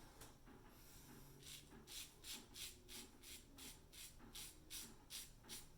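A Gem Pushbutton single-edge razor scraping through lathered stubble in a quick run of short strokes, about three a second, starting a second and a half in. This is a light-pressure cleanup pass.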